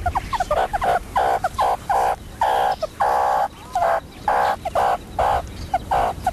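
Meerkats calling over and over, a rapid run of short chirps mixed with longer calls, about two or three a second.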